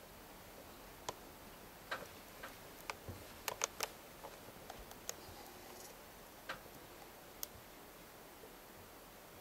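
Faint, scattered sharp clicks and ticks over a quiet background hiss, with a quick cluster of three a little past the middle.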